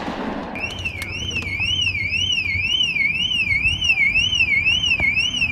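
A car alarm sounding: a high electronic tone sweeping up and down about twice a second, starting about half a second in, over a low rumble. A single sharp click near the end.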